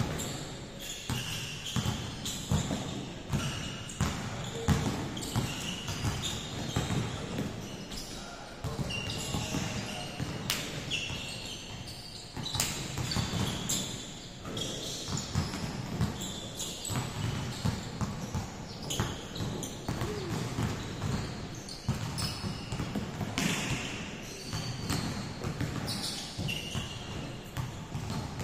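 Several basketballs bouncing irregularly on an indoor court as many players dribble at once, echoing in a large gym hall, with brief high squeaks of sneakers on the floor.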